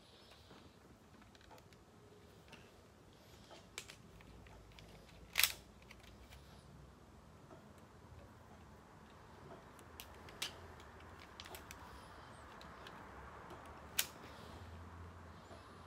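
Faint room noise broken by a few scattered sharp clicks or taps, the loudest about five and a half seconds in and another near the end.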